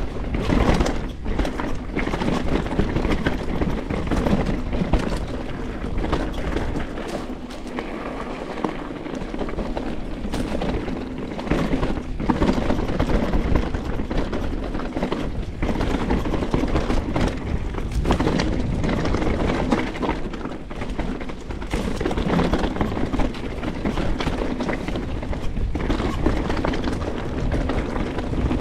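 Canyon Strive enduro mountain bike descending a rough trail: steady tyre and wind rush with frequent knocks and clatters as the bike hammers over rocks and roots.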